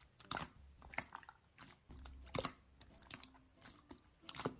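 Faint, irregular typing taps, a few short clicks at uneven intervals.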